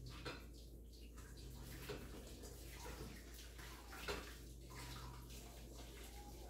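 Cooked spaghetti being drained: water pouring and splashing from a stainless steel pot into a colander in the sink, with a few light knocks.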